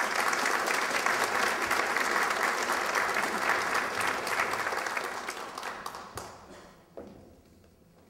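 Audience applauding, steady and loud for about five seconds, then dying away.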